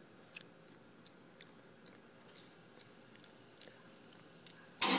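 A few faint clicks over a quiet background, then near the end the Toyota 4Runner's engine suddenly cranks and starts, set off by the remote start on the key fob.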